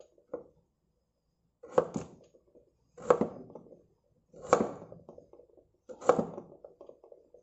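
Chef's knife cutting raw purple sweet potato into cubes on a wooden cutting board. The blade knocks sharply on the board about every second and a half, five times, the first one light.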